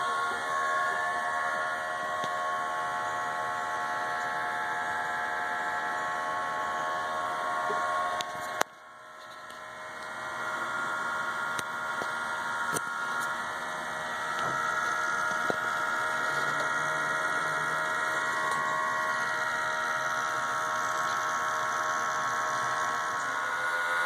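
Smoke machine's air pump running with a steady buzzing hum as it pushes smoke into the engine's intake to find vacuum leaks. A sharp click about eight and a half seconds in briefly cuts it, and the hum builds back up.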